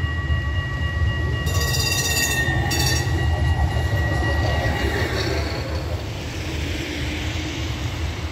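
Tram passing close by: a steady rumble of wheels on rail with a high whine that fades out about halfway through, and two short high-pitched bursts in the first few seconds.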